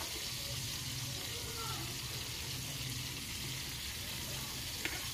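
Marinated fish pieces sizzling in oil on a tawa, a steady frying hiss, with a short click near the end.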